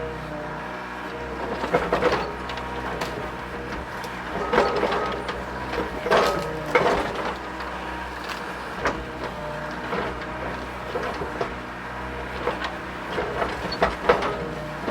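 Mini excavator's diesel engine running steadily with a hydraulic hum, broken by several short squeaks and creaks from the working machine.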